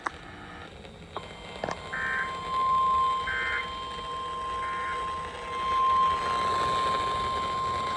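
Emergency Alert System end-of-message data signal on FM radio: three short buzzy digital bursts about a second apart, marking the end of the severe thunderstorm warning. A steady high tone and background hiss run beneath them.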